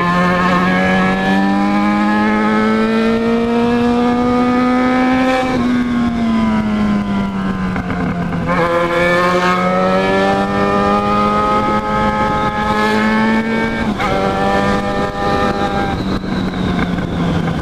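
Yamaha XJ6's 600 cc inline-four engine running under way. Its pitch climbs over the first five seconds, falls away over the next few, then holds fairly steady with a short dip about fourteen seconds in.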